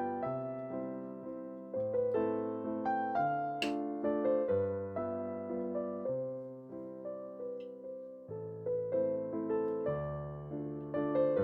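Solo piano background music in a light, even-paced dance rhythm. A single brief clink cuts through about a third of the way in.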